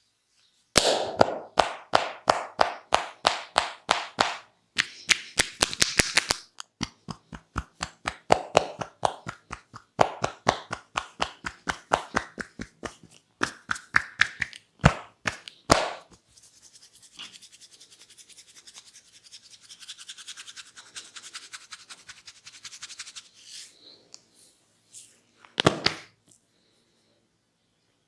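Hands of a barber's head massage striking in a fast, even patter of sharp slaps, several a second, for about fifteen seconds, then a softer rubbing hiss of hands working the hair, with one loud sharp strike near the end.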